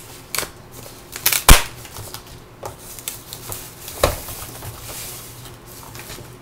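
Rustling and crinkling of a thin foam wrap as a docking station is slid out of it, with a few sharp knocks of the unit being handled; the loudest knock comes about a second and a half in.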